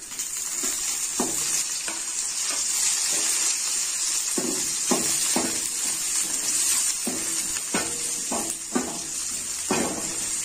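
Shallots and fresh curry leaves sizzling in hot oil in a metal kadai during a tempering. About ten times a steel ladle scrapes and knocks against the pan as the mix is stirred.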